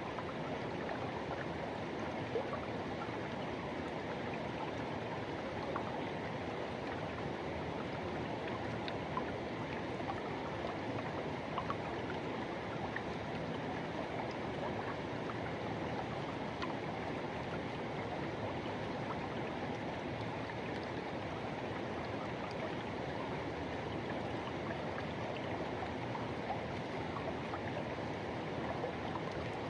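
Forest river flowing: a steady, even rush of water, with a few faint brief ticks now and then.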